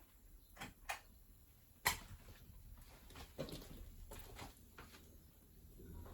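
A few faint clicks and knocks at irregular intervals, the sharpest about two seconds in, over a faint low hum.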